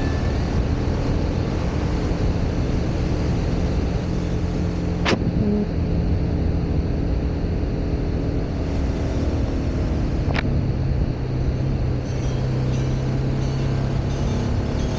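Motorcycle engine running at road speed under a heavy rush of wind on the microphone. There are two sharp clicks, about five and ten seconds in, and the engine's note settles lower after the second.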